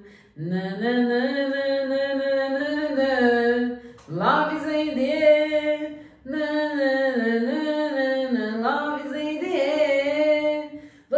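A woman singing a wordless tune in long held notes that slide up and down, in three phrases with short breaks between them.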